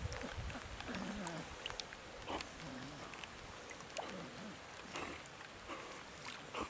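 A dog swimming through lake water in the rain, making a few faint, short pitched noises as it breathes. Rain patters steadily on the water surface, with scattered small splashes and drips.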